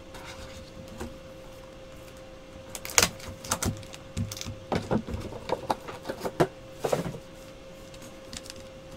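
Foil trading-card packs being taken out of a cardboard hobby box and handled: scattered rustles and clicks, busiest from about three to seven seconds in, over a faint steady hum.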